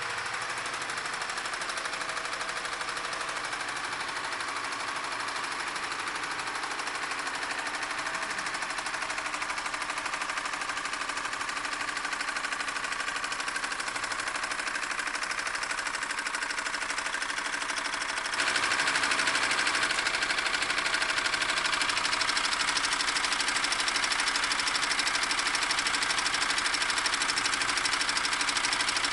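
Cutaway Tata Sumo chassis training model, switched on at a wall switch, running steadily with its gears and shafts turning. The sound is a continuous mechanical whirr that gets louder about two-thirds of the way through.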